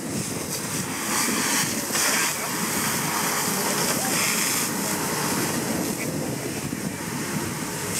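Water jet from a fire hose spraying onto a smouldering, brush-covered bank: a steady rushing hiss, with surges of louder hissing about a second in and again around four seconds in.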